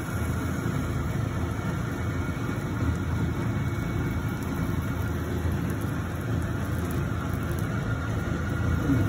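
Steady low rumble and hiss of sausages cooking in oil in a frying pan on a gas stove.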